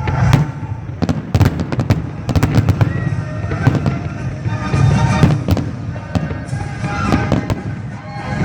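Fireworks going off in an irregular string of sharp bangs and crackles, with deep booms underneath, alongside steady tones.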